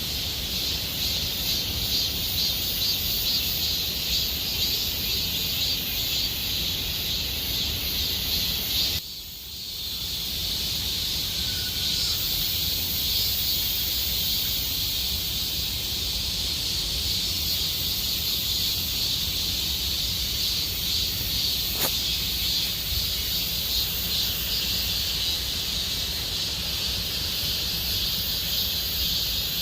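A chorus of cicadas buzzing steadily in a high, dense drone, over a low steady rumble. The whole sound drops out briefly about nine seconds in, then resumes.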